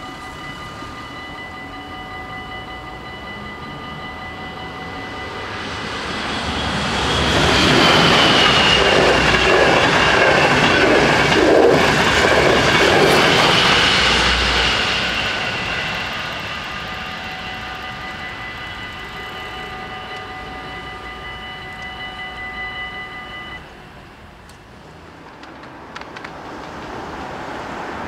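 Level-crossing warning bells ringing steadily while a train passes through the crossing. The train grows loud about 6 s in and fades after about 16 s. The bells stop a little before the end, as the crossing clears.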